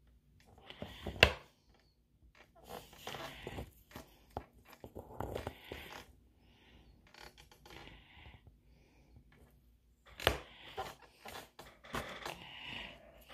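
Clothespins being handled and fitted together on a tabletop: a sharp click about a second in, then spells of scraping and rustling, with more clicks and scrapes near the end.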